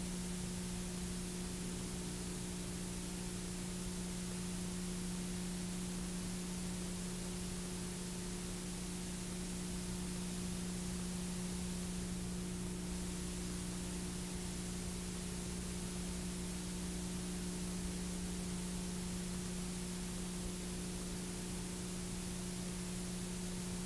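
Steady hiss with a low, unchanging electrical hum underneath: the bare noise of an old analog video recording, with no speech or music.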